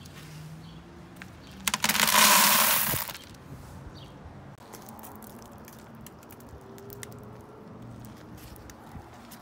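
Small cube-shaped fragments of shattered tempered window glass tipped from a plastic dustpan into a plastic bucket: a loud rattling rush about two seconds in, lasting about a second and a half.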